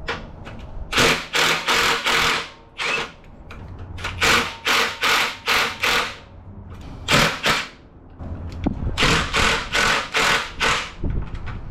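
Workshop tool work on the car's parts: groups of short, scraping strokes about three a second, with brief pauses between the groups.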